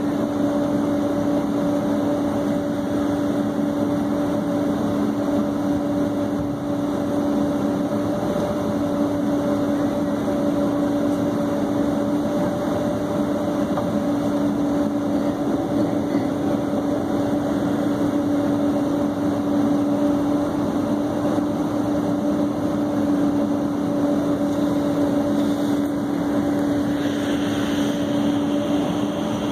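Steady cabin drone of a Boeing 767-300 taxiing, heard from inside the passenger cabin: jet engines at idle with the air-conditioning roar and a steady low hum.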